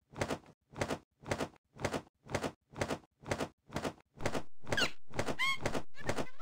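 Cartoon sound effect of a bird's wings flapping: an even run of double-beat flaps, about two and a half a second. About four seconds in a steady background sound joins, and a few short bird chirps come after it.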